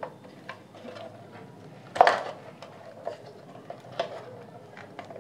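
Scattered light clicks and taps of hard plastic as a circuit board is handled inside a plastic speaker housing, with one louder knock about two seconds in.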